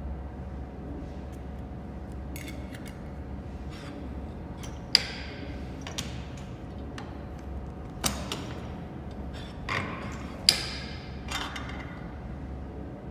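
Hand-lever button maker press and its metal parts clacking as the handle is pulled down and metal shells and die pieces are set in place: a series of sharp clicks and clanks, the two loudest ringing briefly, over a steady low hum.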